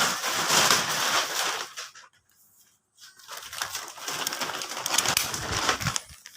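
Harsh scraping and crackling from a tightly packed second-hand clothing bale being opened. It comes in two spells, about two and three seconds long, with a short pause between them.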